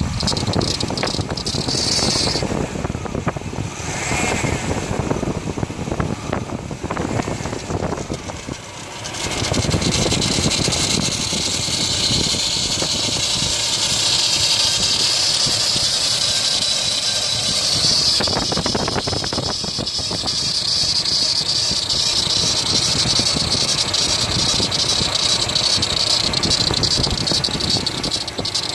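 Car engine running with a steady high-pitched rattling noise, which the owner suspects may come from the AC compressor. The noise becomes louder and steadier about nine seconds in.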